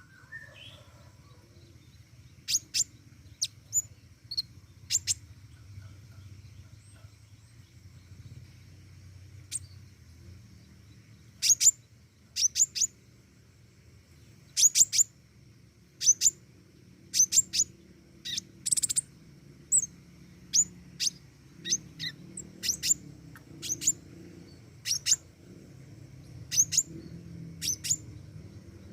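Pentis raja songbird calling: short, sharp, high-pitched chirps, singly or in quick twos and threes, repeated about once a second, over a faint steady low hum.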